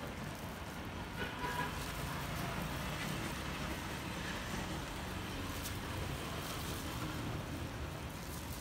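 Steady road traffic rumble, with faint voices about a second in.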